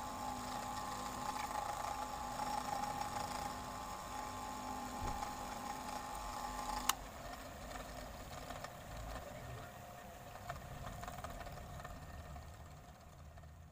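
Electric bench grinder motor with a grinding wheel running steadily with no load, a whine over a low hum. About seven seconds in, a sharp click as it is switched off, and the motor winds down, its sound fading away.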